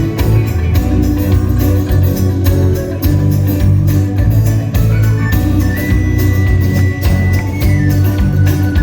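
Live rock band playing an instrumental passage: steady drumbeat over bass, with organ and a long held high note through the middle.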